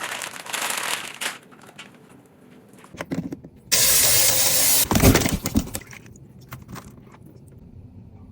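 Kitchen handling sounds in short cut-together snippets: rustling, light clicks and knocks of containers and produce, and about a second of steady rushing noise that starts and stops abruptly, followed by a few dull thumps.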